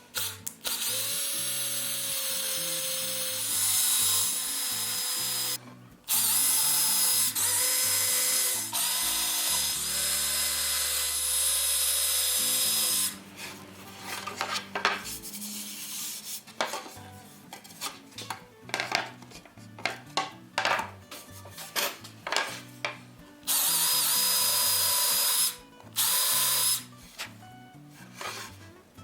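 An electric power tool working wood, running in several long bursts of a few seconds each with a steady whine. In the middle stretch it gives way to a quick series of short, sharp knocks and taps. Background music plays throughout.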